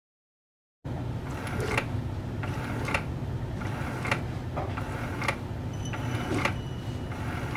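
Drip coffee maker brewing into a glass carafe: a steady low hum with a sharp click about once a second, starting about a second in as the first coffee begins to drip.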